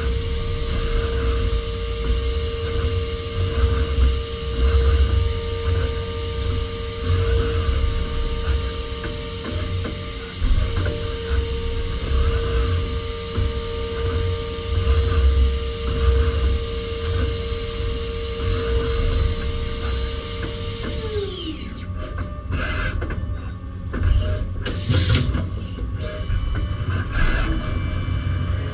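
CNC machining centre milling a small engine block: the spindle's steady high whine over a low cutting rumble, winding down about 21 seconds in, followed by irregular clicks and knocks.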